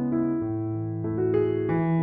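Background music: a soft electric piano playing a slow melody over held bass notes.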